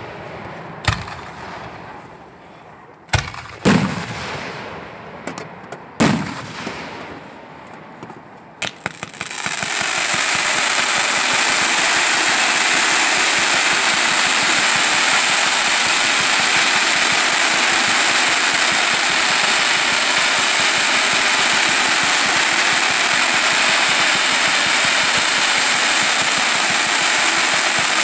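Fireworks: several sharp bangs of aerial shells bursting, each with a short echoing tail. About nine seconds in, a ground fountain starts a loud, steady hiss as it sprays sparks.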